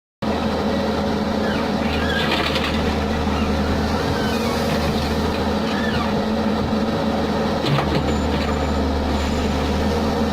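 Case backhoe loader's diesel engine running steadily, with a single sharp knock about three-quarters of the way through.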